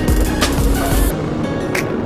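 Background music with a drum beat and held notes. About a second in, a low rumble and high hiss beneath the music cut out, leaving the music alone.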